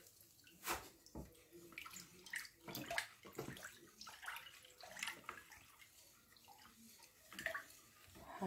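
Lemonade sloshing and splashing in a plastic bowl as it is stirred with a wooden spoon, with lemon juice dripping from a hand-held lemon squeezer. Scattered faint knocks and splashes.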